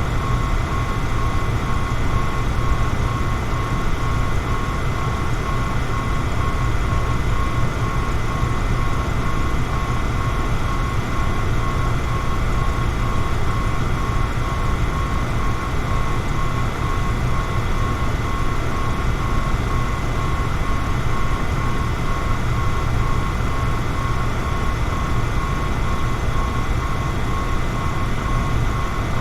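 Electric fan running steadily: a constant rushing noise, heaviest in the low range, with a thin steady whine above it.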